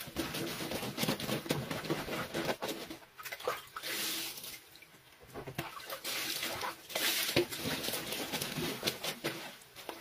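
Wet, soapy clothes being scrubbed and sloshed by hand in water in a concrete laundry sink, with irregular splashing; water is poured from a plastic scoop partway through.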